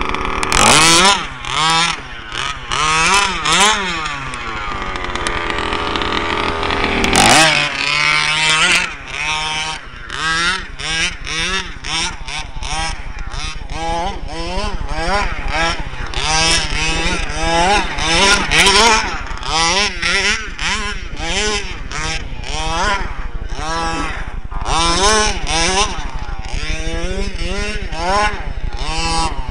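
A large-scale FG RC buggy's 27cc two-stroke gas engine, fitted with a tuned pipe, revving up and down again and again as it is driven in throttle bursts. About four seconds in, the engine winds down and holds steady for a few seconds before quick revs start again.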